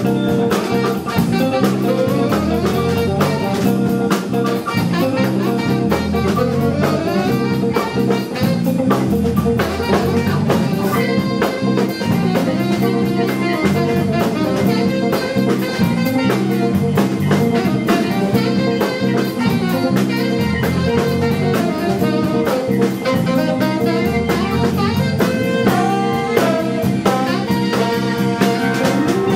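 Live horn-funk band playing a groove: tenor saxophone, with alto saxophone and trombone, over drum kit, electric guitar, bass and keyboards.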